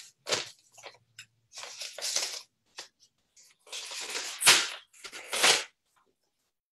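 A paper envelope being opened and handled: several short bursts of rustling, tearing paper, the loudest about four and a half seconds in.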